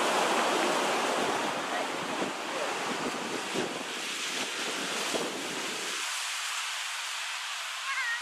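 Small surf waves breaking and washing up a sandy beach in a steady, swelling hiss, with wind on the microphone. The low rumble cuts out abruptly about six seconds in.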